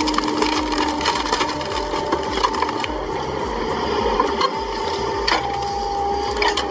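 Hydraulic stump harvester at work: its machinery runs with steady whining tones over a fast low pulsing. One whine drops slightly in pitch about five seconds in, and scattered sharp cracks of wood sound throughout.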